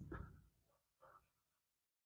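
Near silence: faint room tone, with a soft brief noise at the start and another about a second in.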